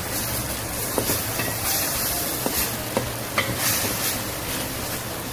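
Chicken mince frying in oil over a raised flame, sizzling steadily while it is stirred, with a few short knocks of the stirring tool against the pan.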